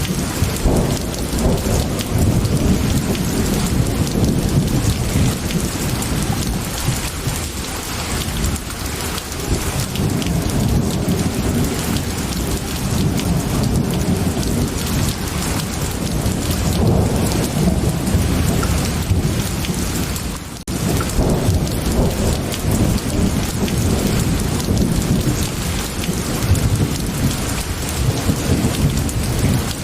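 Steady heavy rain with a deep rumble underneath that swells and eases, and fine crackling through it. The sound drops out for a moment about two-thirds of the way in.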